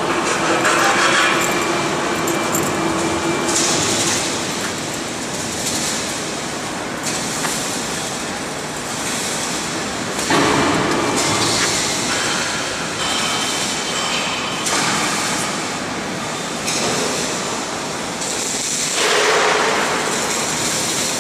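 Continuous heavy mechanical noise, a steady rushing with hissy surges every second or two, typical of steel crane machinery running.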